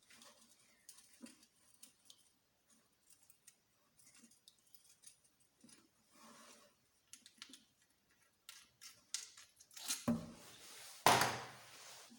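Light clicks and taps of small engine parts and hand tools being handled, with two louder, longer noisy sounds near the end.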